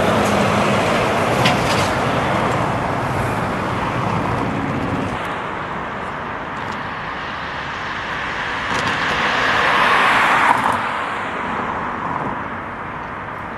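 Road traffic with vehicles driving past. A low engine drone fades out about five seconds in, then a passing vehicle swells to the loudest point about ten seconds in.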